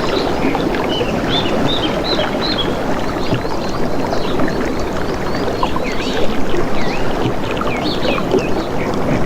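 Steady rushing of moving water with many small birds chirping over it, short high calls scattered throughout.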